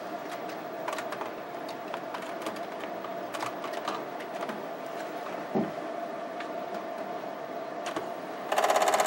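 Keys of a Commodore 64C keyboard clicking as a command is typed. Near the end a Commodore 1541 floppy drive starts formatting a disk with a loud, rapid, even rattle, the drive head knocking against its stop at the start of the format.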